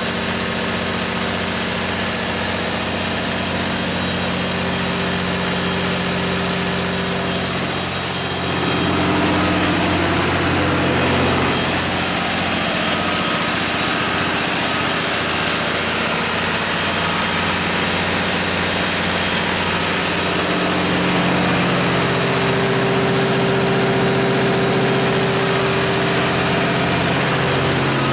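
Cummins KTA19-G2 turbocharged inline-six diesel engine of a 400 kW standby generator set running at a steady governed speed, a loud, even drone with no change in pitch.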